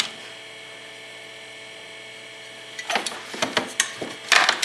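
A steady hum, then from about three seconds in a quick run of clicks and knocks as hard parts from a box of old fire alarm equipment are handled.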